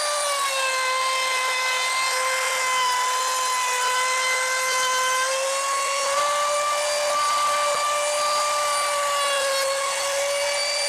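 Compact trim router spinning a roundover bit along the edge of a pine board: a steady high-pitched motor whine that sags slightly in pitch as the bit bites into the wood, about half a second in and again near the end.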